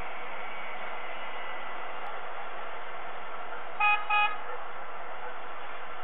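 Two short toots of a vehicle horn about four seconds in, less than half a second apart, over a steady hiss of wind and background noise.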